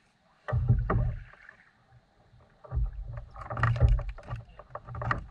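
Thumps and knocks against a kayak with sharp clicks as a caught olive flounder is handled: a short bout about half a second in, then a longer one from nearly three seconds in.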